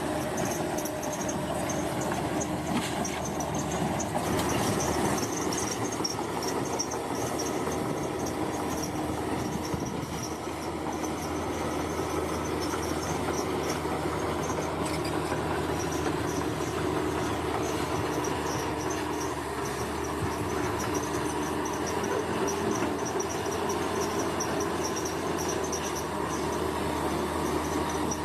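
Heavy earthmoving machine's engine running steadily, with insects chirping in a high, pulsing band throughout.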